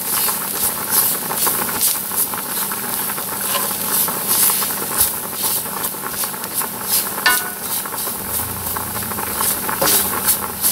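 Onions and cornstarch sizzling in hot oil in a cast iron skillet, a steady hiss, while a wooden spatula stirs and scrapes across the pan in repeated strokes.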